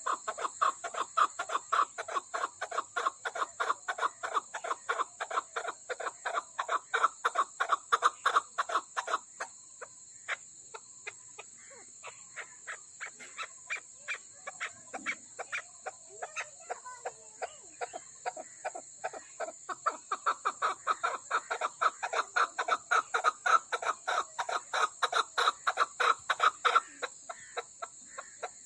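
Chukar partridge calling: a long run of quick clucking notes, several a second. The notes are loud for the first nine seconds or so, thin out and fade through the middle, then come back loud about twenty seconds in.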